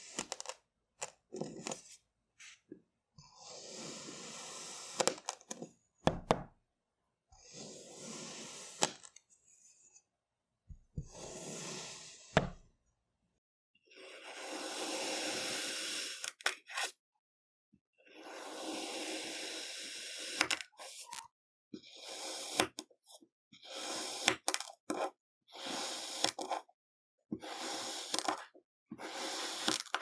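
A steel kitchen knife slicing again and again through packed, crunchy kinetic sand: gritty scraping strokes about a second or two long, with sharp cracks between them.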